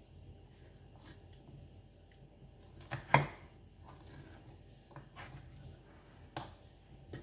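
Metal fork clinking and scraping against a plate, a handful of sharp clicks with the loudest about three seconds in, over soft chewing.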